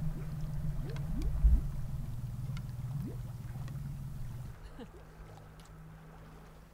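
Motorboat engine running with a steady low drone, fading as the boat moves away. There is a single low thump about a second and a half in.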